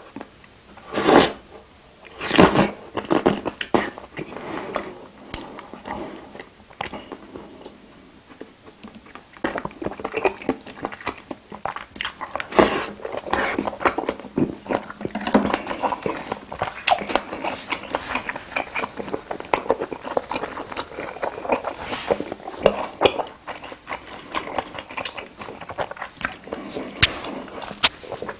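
Close-miked eating sounds of a spicy seafood boil being bitten and chewed: many short clicks and smacks, with two louder knocks in the first few seconds and busier chewing from about ten seconds in.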